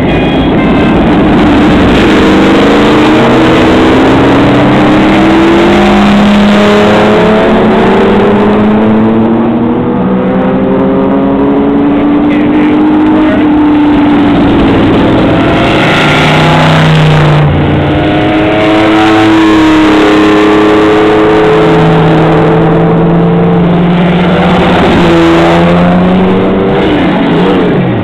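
Vintage race cars driving past one after another, loud, their engines revving up and down as each goes by.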